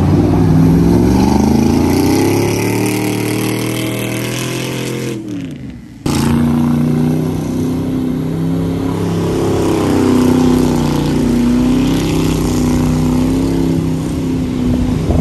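A full-size SUV's engine revving hard under load as it spins through a mud bog. The revs climb over the first couple of seconds and ease off, fall away about five seconds in, then come back loud and sudden just after six seconds, rising and falling unevenly.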